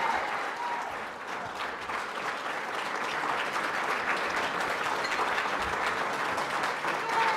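Audience applauding, a dense patter of many people clapping. It eases a little about a second in, then holds steady.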